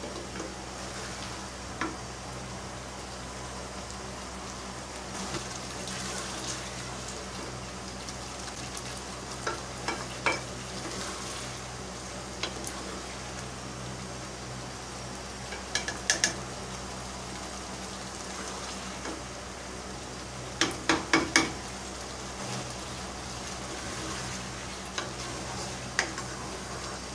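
Thick taro-and-mutton curry masala sizzling as it fries in a pot, stirred with a plastic spoon that knocks against the pot now and then. There is a quick run of four knocks about three-quarters through. The masala is being fried down until the oil separates, before the water goes in.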